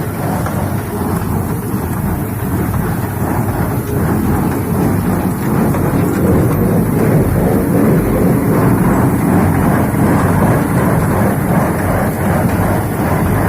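Tractor and tractor-drawn paddy-straw baler running in the field: a steady, loud mechanical rumble that grows a little louder about five seconds in.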